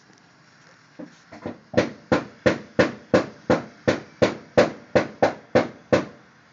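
Handheld butane torch lighter's trigger clicked over and over, a sharp click about three times a second. It starts softly about a second in, then runs at an even pace and stops shortly before the end.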